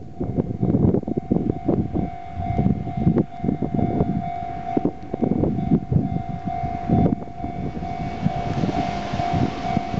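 Japanese railway level-crossing alarm ringing with a steady repeating tone, over irregular low rumbling. From about eight seconds in, a rising rush builds as an approaching train nears the crossing.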